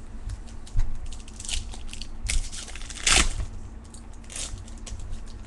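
Baseball cards and their packaging being handled: quick crinkling, rustling and clicks, with a longer, louder crinkle a little past halfway.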